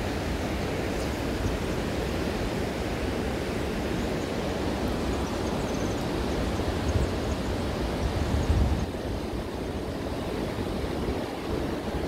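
Steady rush of a mountain river flowing over stones and gravel, with a few louder low thumps about two-thirds of the way in.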